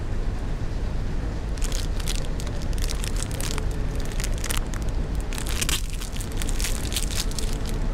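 Plastic ice-lolly wrapper crinkling in the hands as it is turned over and pulled open, in irregular crackly clusters starting about a second and a half in, over a steady low rumble of background noise.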